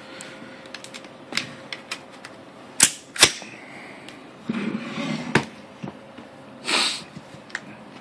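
Sharp metallic clicks and snaps from an AR-15's action being worked by hand, with the two loudest clicks about a third of a second apart around three seconds in, and a short sliding rasp near the end.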